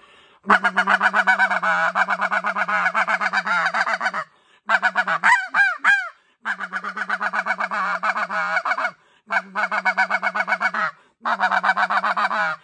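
NoCo White Out snow goose call blown in the feeding growl, a gurgling technique. It gives long runs of fast, rattling pulsed notes, broken about five seconds in by a handful of separate short calls.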